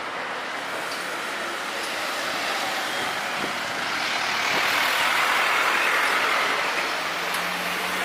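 Airbus A321's jet engines running, a steady roar that swells to its loudest about five seconds in, then eases off a little.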